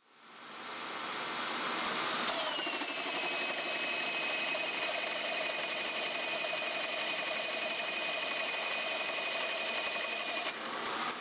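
Hole saws cutting through metal in drill presses: a steady grinding with a high whine that drops in pitch about two seconds in, then holds until it stops near the end.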